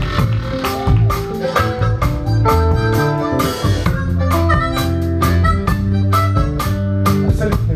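Live band playing: a harmonica cupped against the vocal microphone plays held notes over a drum kit and electric guitar.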